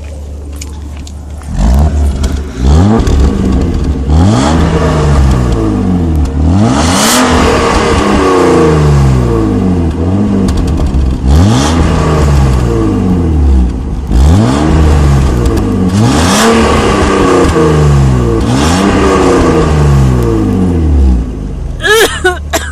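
BMW E36 325i's 2.5-litre straight-six, a 1991 engine without VANOS, heard at the tailpipe of its stock catalysed exhaust. It idles briefly, then is revved again and again, the pitch climbing and falling with each blip.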